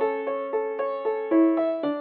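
Background music: a keyboard playing a steady run of short notes, a little over four a second, each fading before the next.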